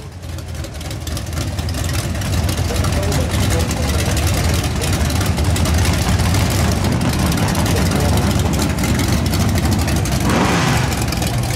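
Drag-race Chevy II Nova's engine idling loudly with a low, pulsing rumble as the car creeps forward to stage; the engine sound grows brighter near the end.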